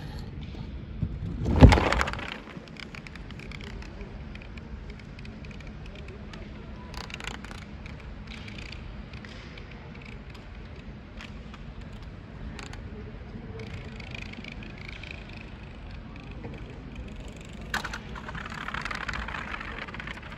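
Steady background noise of a large sports hall while a small model plane flies. A loud, brief rushing noise comes about two seconds in. Near the end there is a sharp click, then about two seconds of scraping as the model plane lands and slides on the wooden floor.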